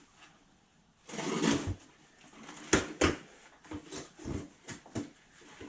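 Cardboard box being opened and handled: a scraping, rustling burst about a second in, then two sharp knocks and several lighter taps.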